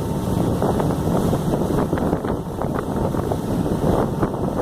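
Wind buffeting the microphone aboard a moving harbour ferry, over the steady rumble of the ferry under way.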